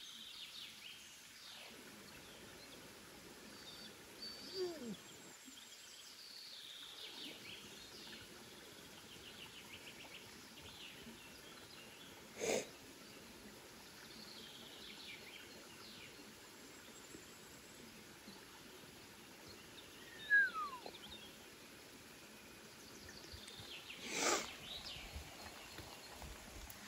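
Faint outdoor ambience with small birds chirping now and then. A few short louder sounds stand out: two calls that slide down in pitch, and a couple of brief sharp noises.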